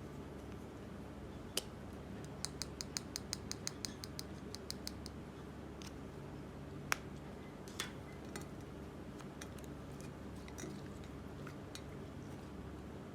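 Dry chalk cracking and snapping as it is broken up: a quick run of crisp ticks, about five a second, a couple of seconds in, then a few sharper single snaps, over a steady low hum.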